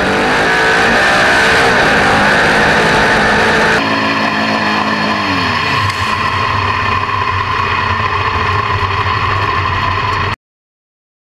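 Drag racing car's engine at full throttle, heard on board the car. About four seconds in the sound changes, and around five to six seconds in the revs drop away and the engine runs on a little quieter. It cuts off suddenly near the end.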